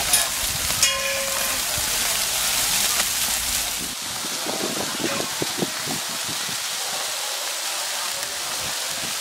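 Chicken pieces sizzling on a large charcoal grill over hot coals: a steady hiss like rain, with a few light clicks about halfway through.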